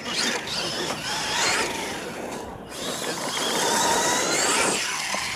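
Radio-controlled monster truck's electric motor and drivetrain whining as it drives hard across dirt, with tyre and dirt noise. The whine eases off about two and a half seconds in, then revs up again, rising in pitch before dropping back near the end.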